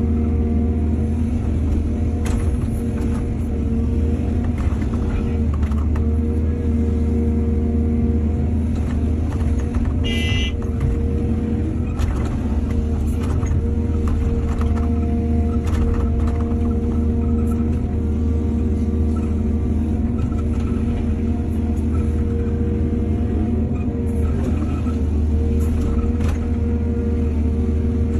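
Heavy diesel engine of an excavator running steadily under work, with scattered knocks and clanks. There is a brief high-pitched squeak about ten seconds in.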